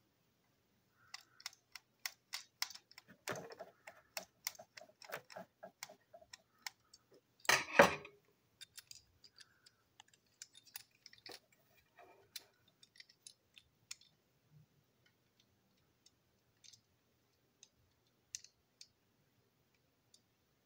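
Light plastic clicks and rattles from handling a model diesel locomotive's chassis and small parts during disassembly. The clicks come thick over the first seven seconds, with one louder clatter about seven and a half seconds in, then only scattered clicks.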